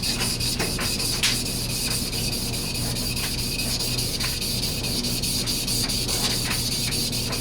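Steel paring knife blade being rubbed back and forth on a King 1000-grit Japanese water stone, a steady abrasive rasp as the primary edge is ground down.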